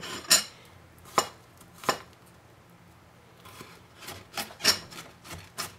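Chef's knife chopping garlic cloves on a wooden cutting board: three separate knife strikes on the wood, then a quicker run of chops near the end.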